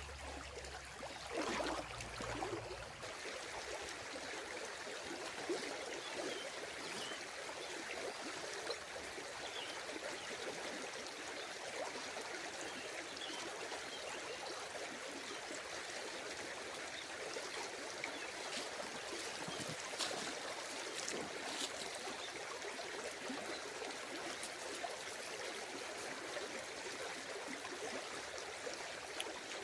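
Steady rush of flowing water, with a few faint ticks near the middle.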